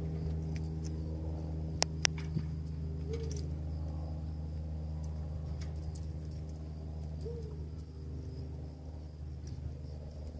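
A motor hums steadily and low throughout. Two sharp clicks come about two seconds in, and a short low coo sounds twice, a few seconds apart.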